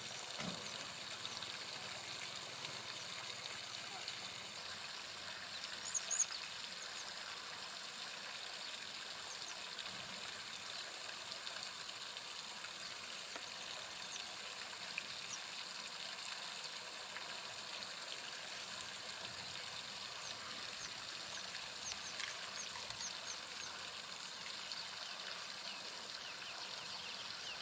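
Steady outdoor ambience: an even hiss with faint, short high calls scattered through it and one louder short high call about six seconds in.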